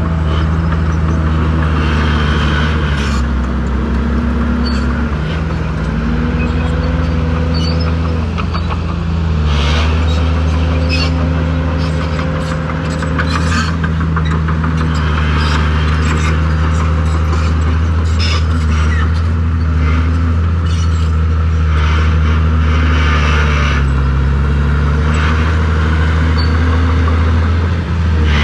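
Heavy diesel engine of an earthmoving machine working at the stone fill, its pitch rising and falling every few seconds as it is throttled up under load and eased off, with scattered metallic clanks.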